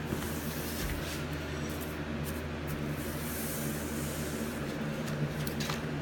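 Paintbrush rubbing and swishing as primer is brushed onto old wood trim, a few short strokes over a steady low hum.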